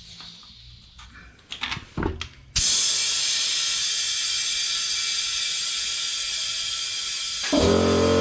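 A few clicks as the air line is fitted to the motorcycle tyre's valve, then, about two and a half seconds in, a loud steady hiss of compressed air rushing in to inflate the freshly mounted tyre. Near the end an air compressor's motor starts, adding a steady hum under the hiss.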